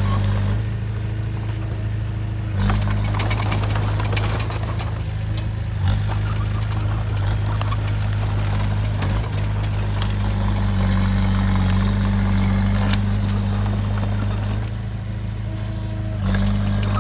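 Heavy construction machinery's diesel engine running steadily with a low hum, with a few sharp knocks. The sound shifts abruptly a few times.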